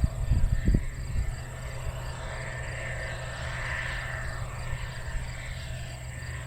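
Case IH 2300-series Axial-Flow combine engine running under load as the machine pulls through wet soybeans, a steady low drone. A few low thumps come in the first second.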